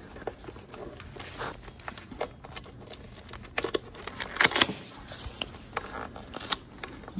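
Jacket fabric rubbing and brushing close against the phone's microphone, with irregular clicks and light knocks from handling; the loudest cluster of clicks comes a little after three and a half seconds in and runs to about four and a half seconds.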